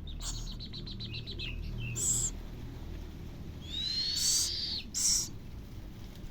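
Baby scops owl calling while being fed: a quick trill of short high notes, a few short hissing bursts, and one longer high call that rises and then holds, typical begging calls of an owlet.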